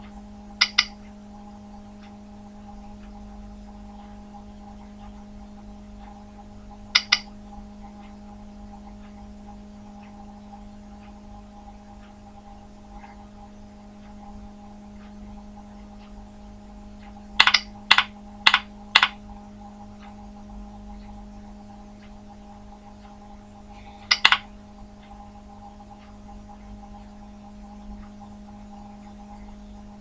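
Computer mouse button clicks, mostly quick double clicks, with a run of about five clicks midway, over a steady hum.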